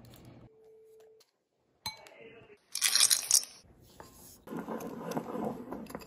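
Kitchen sounds of ingredients going into bowls and being mixed: light clinks and handling noises, a bright rustling hiss about three seconds in, then about a second and a half of scraping stirring in a bowl.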